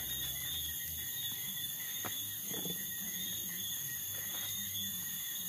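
Steady high chirring of insects, with a couple of faint clicks, one about two seconds in.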